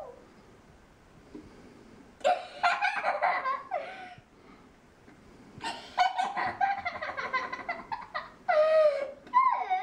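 A young girl laughing in high-pitched, rapid giggles: one burst about two seconds in, then a longer run from about six seconds to the end.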